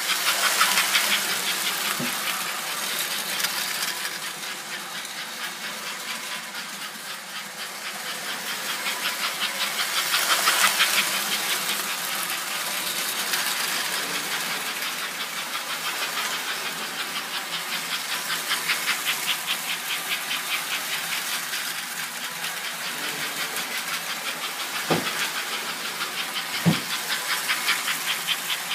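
American Flyer 302 AC S-gauge toy steam locomotive and its cars running laps on sectional track: a steady, rapid rhythmic clatter with hiss that grows louder at the start and again about ten seconds in, as the train passes close. A few sharp knocks, one about two seconds in and two near the end.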